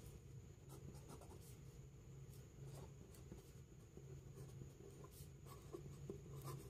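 Pen writing on ruled notebook paper: faint, short strokes as a few words are written by hand.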